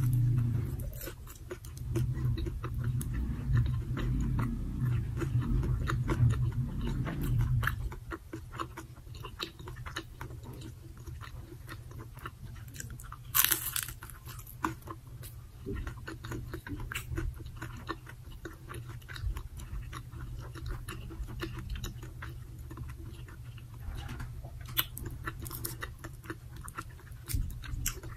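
Close-miked crunchy bites into a fried dynamite lumpia (a chili spring roll), followed by chewing with crisp crackles. One loud crunch comes about halfway through.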